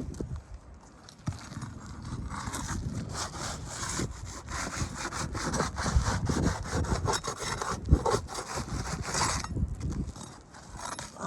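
Asphalt shingles being worked loose with a roofing pry bar: a long run of rapid rasping, scraping strokes as the bar is driven under the shingles and the shingles are pried up. This is part of a repairability test, lifting the shingles to see whether they come off without damage.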